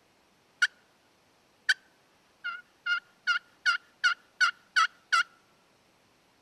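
Pot-style friction turkey call worked with a wooden striker: two sharp single clucks, then a run of eight yelps at about three a second.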